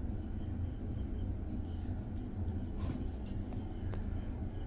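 Quiet kitchen background as ghee melts in a kadai over a gas flame: a low steady hum and a thin, steady high-pitched whine, with a couple of faint clicks about three and four seconds in. There is no clear sizzle.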